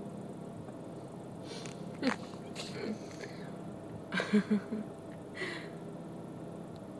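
A person's quiet, breathy laughter: a few short snickers and breaths, the loudest a quick run of three chuckles about four seconds in, over a steady low hum.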